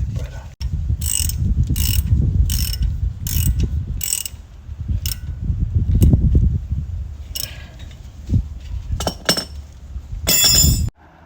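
Ratchet wrench clicking in repeated back-and-forth strokes, with a longer run of clicking near the end, under a low rumble of handling noise.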